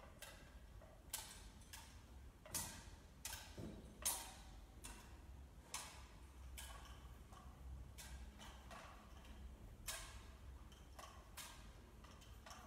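Faint, irregular clicks and knocks with a short church echo, from small objects being handled and set down at the altar.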